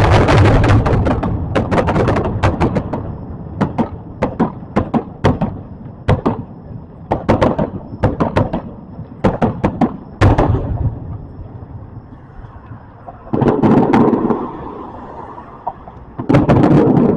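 Firecrackers going off: a fast crackling string of pops, then scattered single sharp cracks, one louder bang, and two heavier bursts near the end.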